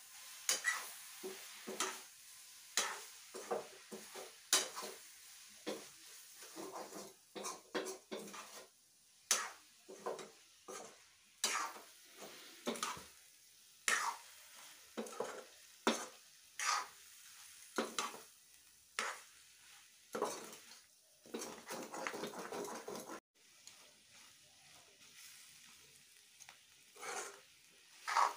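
Metal spatula scraping and knocking against a metal kadhai as a beans and potato curry is stirred, over a steady sizzle of frying. The strokes come in irregular flurries and thin out after about 23 seconds in.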